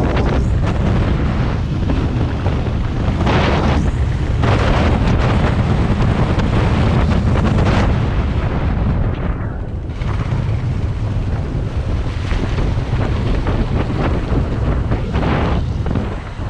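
Heavy wind buffeting on an action camera's microphone while riding a motorcycle: a steady, loud rushing with a few brief gusts.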